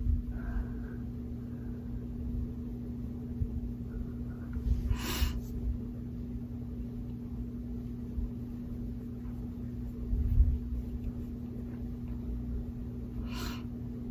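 Quiet room tone with a steady low hum and soft low bumps, and two short breaths, about five and about thirteen seconds in.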